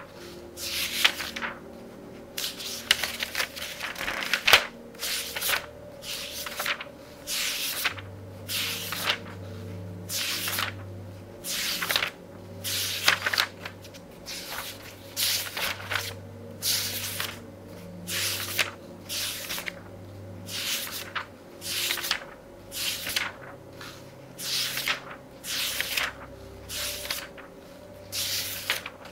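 Pages of a very thick book being turned quickly by hand, each turn a short papery swish, about one a second.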